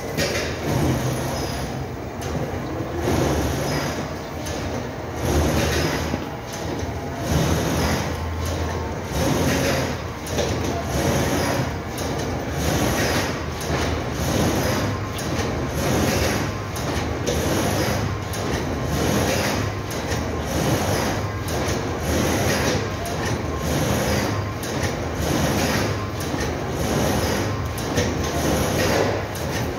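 Steady mechanical noise with a regular beat about once a second, like production machinery running in the box factory.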